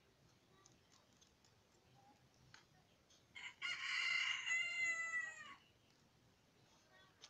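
A rooster crowing once, a single call of about two seconds starting about three and a half seconds in, harsh at the start and dropping slightly in pitch as it ends.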